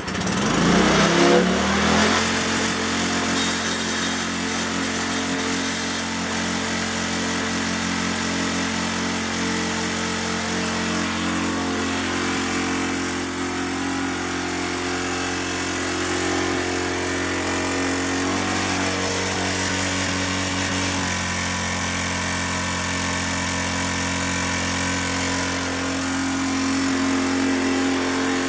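Petrol lawn mower engine starting straight away: it catches and climbs in pitch to speed over the first two seconds, then runs steadily.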